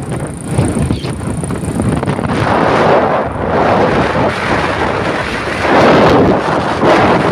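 Wind buffeting a phone microphone while moving, a steady rushing noise that swells louder twice, about a third of the way in and near the end.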